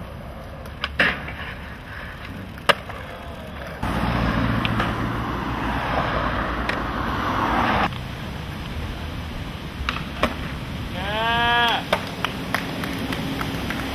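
Skateboard on concrete: a sharp crack of the board a few seconds in, then the wheels rolling loudly for about four seconds before stopping abruptly. Later come two quick clacks of a pop and landing, followed by a brief pitched squeal.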